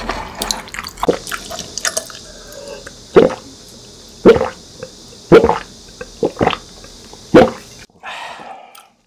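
Gulping a drink from a glass bottle: five loud swallows about a second apart, after a little chewing, ending in a short breathy exhale.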